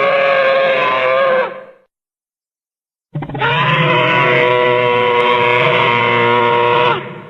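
Custom-made creature call sound effects for the Gwythaint, a dragon-like bird: two long, low-pitched calls held at a steady pitch. The first fades out about a second and a half in; the second starts after a gap of dead silence and runs to near the end.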